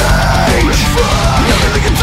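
Loud heavy rock music playing continuously.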